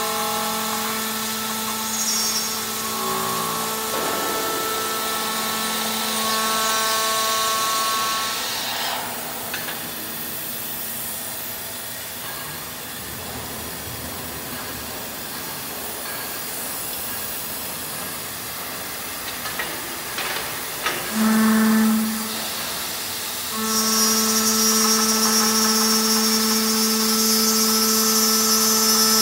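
Aluminum profile CNC drilling-milling machine at work: the spindle motor runs with a steady whine while the head travels along the bed. About three-quarters of the way in it gets louder, with a high hiss over the whine, as the spindle comes down onto the aluminum profile.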